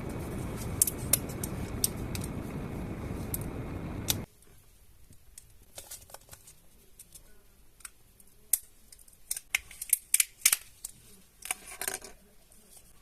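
A steady rushing noise that cuts off suddenly about four seconds in, then packaging being handled and opened: sharp clicks and crisp crinkling, busiest in the second half.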